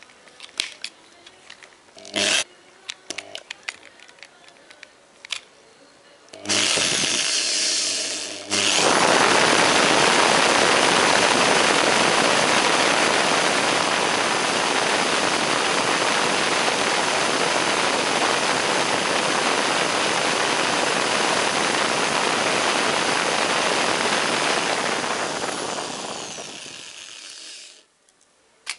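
Electric hammer drill (810 W) spinning a BIC pen jammed into a cassette's reel hub, rewinding the tape at high speed. A few light handling clicks first, a short burst of running about six seconds in, then a long steady loud run from about nine seconds that winds down and stops near the end.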